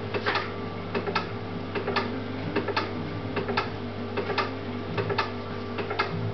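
Laboratory equipment clicking in a steady rhythm, a double click about every 0.8 seconds, over a steady electrical hum.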